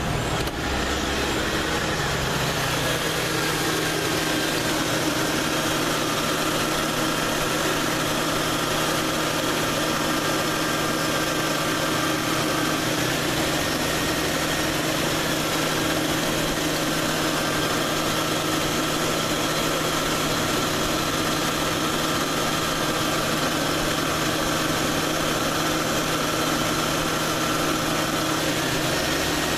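Ford Crown Victoria V8 idling with its accessory belt and pulleys whining steadily. The idle note and the belt whine shift every fifteen seconds or so, in step with the A/C compressor clutch cycling on and off.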